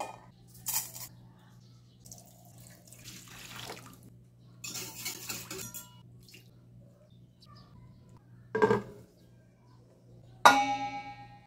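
Water splashing and sloshing in a stainless steel bowl as raw chicken thigh fillets are put into it, in several short bursts, then a knock. Near the end a sharp strike on the stainless steel bowl sets it ringing briefly.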